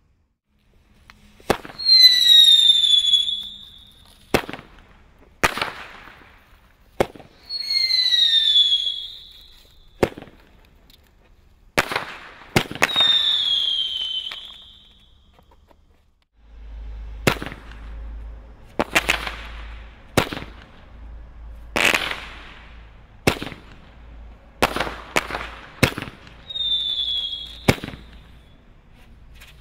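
Crazy Aces 5-shot roman candles firing shot after shot: sharp pops every second or two. Several shots carry a loud whistle that falls in pitch over about a second. A low rumble runs under the later shots.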